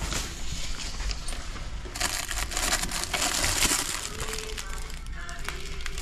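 Plastic wrapping on a pair of disposable slippers crinkling as it is handled, loudest for about two seconds in the middle.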